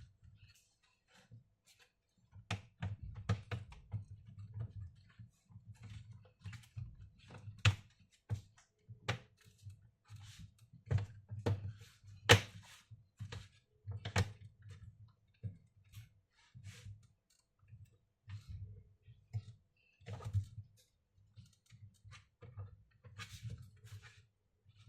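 Irregular clicks, taps and light knocks of hands working on a laptop's hard plastic casing and small parts, with dull thuds under them.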